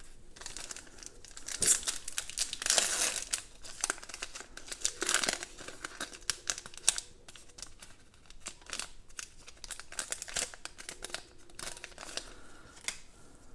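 Foil wrapper of a 2020 Absolute Football card pack being torn open and crinkled, in loud crackling bursts, then the stack of cards slid out of the wrapper and handled.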